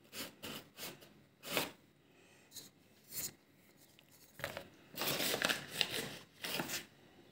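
Flour bag rustling and crinkling as the meat-filled end of a stuffed pepper is pushed into the flour to coat it: a few short bursts, then a longer stretch of rustling over the last three seconds.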